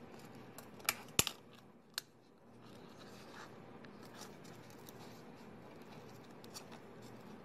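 Handling of a new fabric wick and the metal wick sleeve of a Kerona WKH-22G kerosene heater: faint rustling and scraping of cloth on metal, with a few sharp clicks about a second in and again at two seconds as the sleeve's pins snap into the wick's holes.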